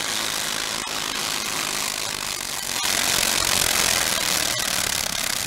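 Modified pulling garden tractor's engine running hard through open exhaust stacks while it drags a weight-transfer sled, growing louder about three seconds in.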